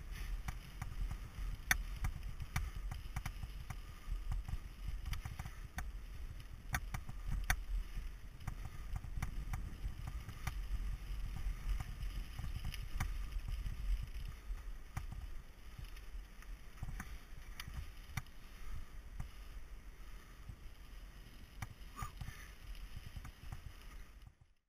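Mountain bike riding over a gravel forest trail, heard through a bike- or body-mounted camera: wind rumbling on the microphone, tyre noise on the gravel and frequent sharp clicks and rattles from the bike and loose stones. The sound cuts off suddenly near the end.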